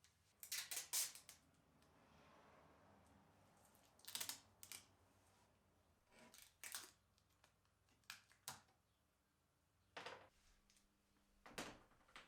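Faint, scattered light clicks and knocks, a few seconds apart, with a brief cluster of them near the start.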